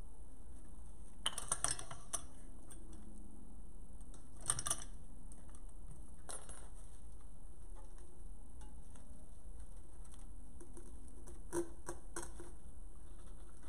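Floral pick machine crimping metal picks onto artificial flower stems: a few short clusters of sharp metallic clicks and clacks, a few seconds apart, over a steady low hum.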